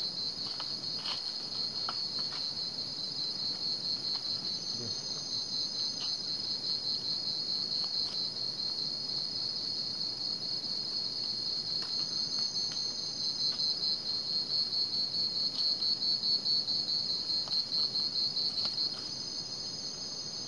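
Night insects trilling: a steady, high, fast-pulsing trill, a little louder for a few seconds in the second half, with a second, higher trill joining briefly three times.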